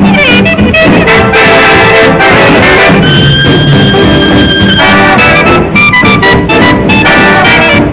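Swing jazz music with brass, including one long held note about three seconds in.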